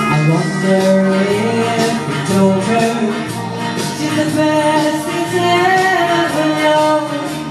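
A woman singing karaoke into a microphone over a recorded pop backing track, both coming through a PA speaker.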